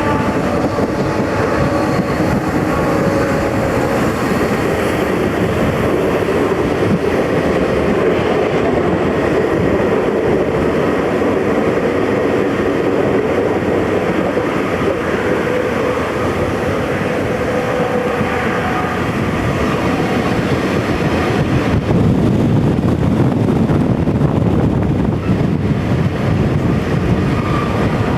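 Passenger train running on the line, heard from an open vestibule: a loud, steady rumble of wheels on rail with rushing air.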